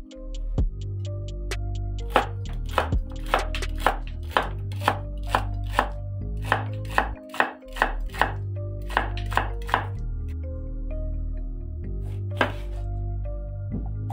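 Chef's knife chopping celery stalks on a wooden cutting board: a run of sharp knocks, about two a second, over background music.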